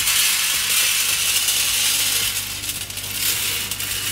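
Roasted coffee beans poured from a cup onto an enamel tray: a dense, continuous clatter of beans hitting and scattering across the tray, easing off near the end.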